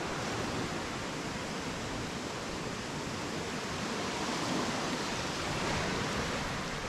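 Steady, even rush of water with no breaks or separate sounds.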